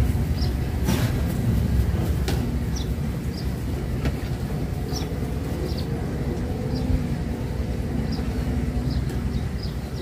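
Outdoor ambience: a steady low rumble with small birds chirping in short, high notes, and a faint engine hum in the middle.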